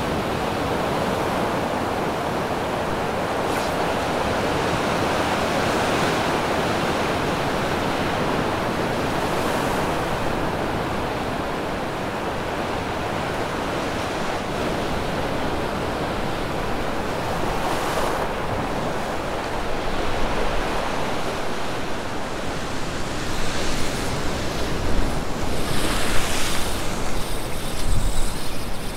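Ocean surf washing and breaking over a rock ledge in a steady rush, with a couple of louder wave surges. Wind buffets the microphone in gusts over the second half.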